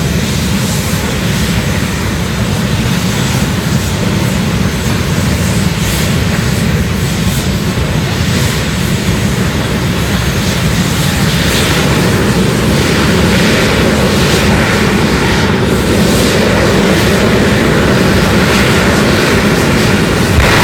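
Jet dragsters' turbine engines running at the starting line: a loud, steady jet roar that grows somewhat louder in the second half.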